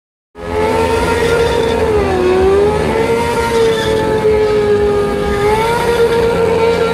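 Motorcycle engine held at high revs as the bike spins a smoky burnout donut, steady apart from two brief dips in pitch.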